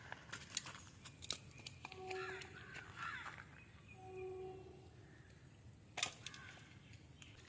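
A bird calling twice, each call short and even in pitch, over a faint outdoor background, with a few sharp clicks; the loudest click comes about six seconds in.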